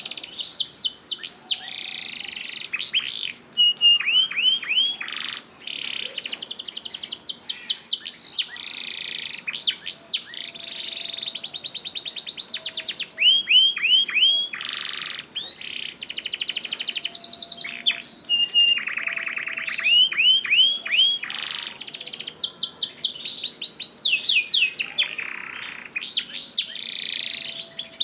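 Domestic canary singing a long, continuous song of rapid rolling trills and rows of quick downward-sweeping whistled notes, phrase after phrase with only brief pauses.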